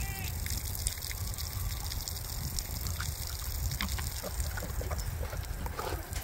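Sow and piglets chewing watermelon rind, with scattered small crunches and smacks over a steady low rumble.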